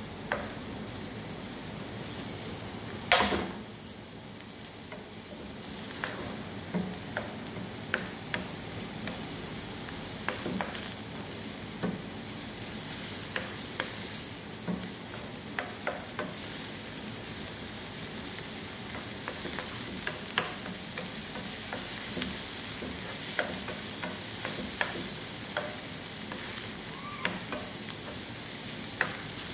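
Chopped onion and ginger sizzling in oil in a non-stick frying pan. A wooden spoon stirs them, scraping and tapping the pan every second or so, with one louder knock about three seconds in.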